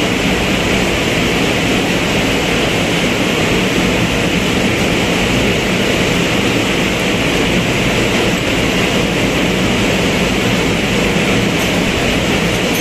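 Loud, steady machinery noise of a ship's engine room: an even din with no rhythm or change.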